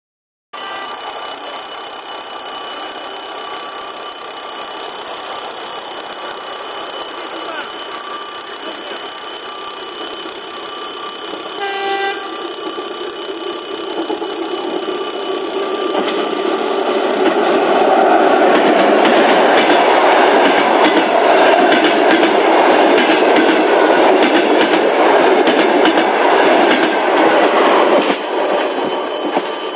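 ChS4T electric locomotive and passenger train passing. First heard approaching, with a short horn toot about twelve seconds in. Louder from about eighteen seconds, the wheels clatter over the rail joints as the coaches go by, easing off near the end as the last coach passes.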